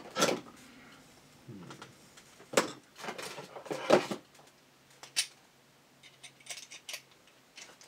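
A screwdriver and hard plastic parts being handled on a desk: a handful of sharp clicks and knocks in the first five seconds, the loudest about four seconds in, then a run of lighter ticks.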